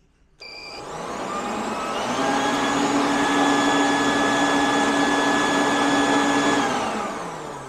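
Electric leaf blower running off an inverter: the motor spins up with a rising whine over about two seconds, runs steadily, then winds down near the end. A short high beep right at start-up is the inverter's alarm, set off briefly by the motor's inrush current.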